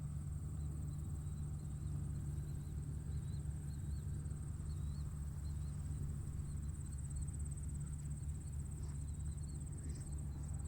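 Insect trilling steadily in a high, finely pulsing buzz over a low, steady rumble, with faint short chirps now and then.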